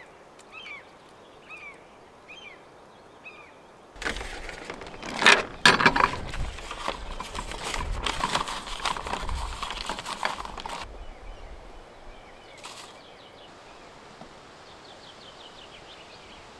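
A bird chirps in short, repeated calls. About four seconds in, camp cookware is handled close up at a pickup's slide-out kitchen drawer: clattering and knocks, a few of them sharp and loud, that die away after about seven seconds.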